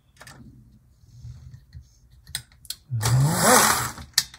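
HO-scale model electric locomotive running on test track, its motor and gear train whirring with a faint hum and a few clicks. About three seconds in the whir gets loud and rises in pitch for about a second. It is a hesitant, noisy run from a motor and gears that look dry.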